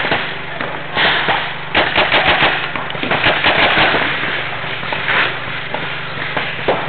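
Paintball markers firing, mostly single pops with two rapid strings of about eight shots a second, around two seconds in and again a little after three seconds.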